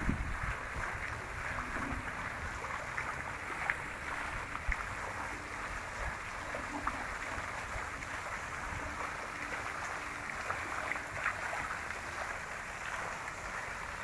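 Steady splashing hiss of fountain jets falling back into a pond, with a low rumble underneath.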